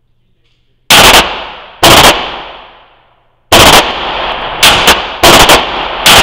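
Six gunshots fired at a paper target: two about a second apart, a pause of well over a second, then four more in quicker succession. The shots are loud enough to clip the recording, and each one is followed by a long echoing tail.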